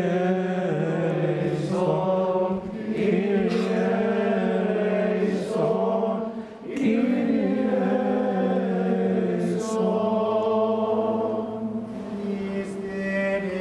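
A group of voices singing a slow chant of the Mass in unison, held notes broken by short breaths about two and a half and six and a half seconds in.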